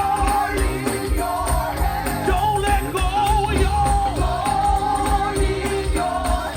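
Gospel music: sung melody lines held and bending over a band with a steady bass beat.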